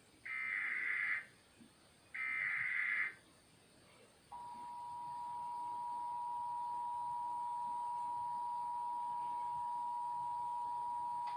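Emergency Alert System SAME header: the last two of three short bursts of high, warbling digital data tones, then about four seconds in the steady two-tone EAS attention signal (853 and 960 Hz) starts and holds. Together they open a Child Abduction Emergency (Amber Alert) broadcast.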